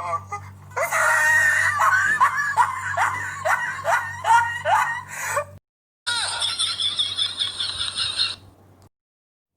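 Comedy voice sound effects: a run of about eight short cries, each falling in pitch, about two a second, over a steady low hum. After a brief cut-out comes a second, shriller effect lasting about two seconds.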